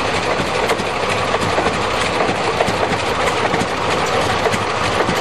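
Antique tractor engines running steadily: a Rumely OilPull and a Farmall joined by a flat drive belt, with a rapid, even chugging beat.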